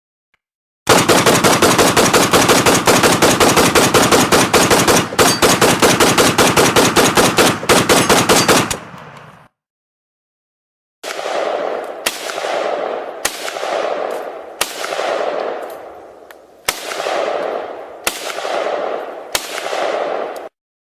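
AK-47 Kalashnikov assault rifle firing: one long full-auto burst of rapid shots lasting about eight seconds. After a short pause come about seven separate shots, each followed by a long rolling echo.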